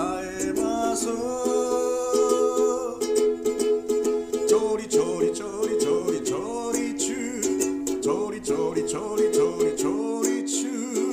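Ukulele music: a ukulele played in a steady rhythm of strummed and plucked chords.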